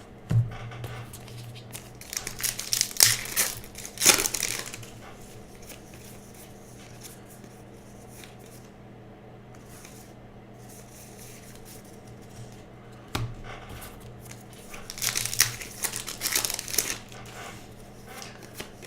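Crinkling and tearing of a trading-card pack wrapper being opened by hand, in two bursts of rustling, a couple of seconds in and again near the end, over a steady low hum.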